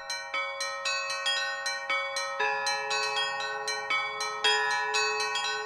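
Church bells ringing: quick strikes of several bells, a few a second, over lingering ringing tones, with a lower bell joining about two and a half seconds in.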